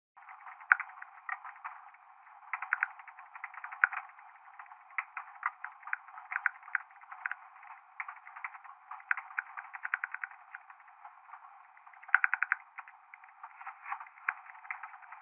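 Vehicle interior rattling: irregular sharp clicks and ticks, several in quick clusters, over a steady thin hiss.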